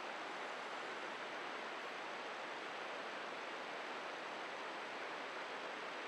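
Steady, even hiss of wind and sea.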